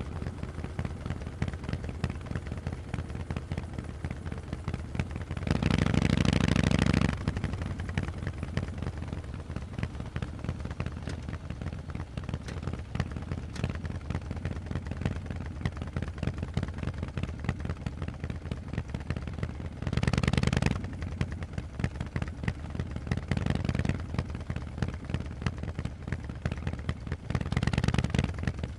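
Harley-Davidson Forty-Eight's air-cooled 1200 cc V-twin running through Vance & Hines exhausts while riding, a steady, pulsing exhaust note. It swells louder four times: about six seconds in, around twenty seconds, a little after that, and near the end.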